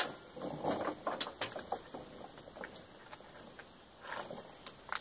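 Steel tire chain clinking and rattling as it is lifted and draped over a garden tractor's rear tire: a sharp clink at the very start, a run of link rattles over the next couple of seconds, and another short burst near the end.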